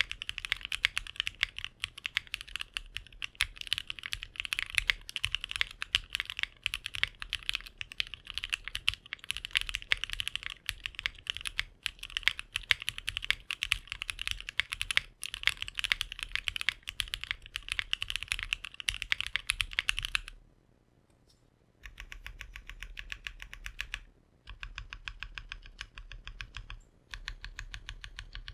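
Fast typing on a custom 60% mechanical keyboard (Bakeneko 60, FR4 plate, O-ring mount) with Mode Reflex linear switches lubed with Krytox 205g0 and GMK ABS keycaps: dense, overlapping key clacks. About twenty seconds in it stops briefly, then comes back as three runs of quick, evenly spaced key clicks.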